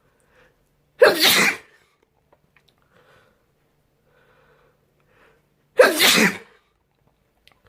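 A person sneezing twice, about five seconds apart, each sneeze a loud burst lasting about half a second.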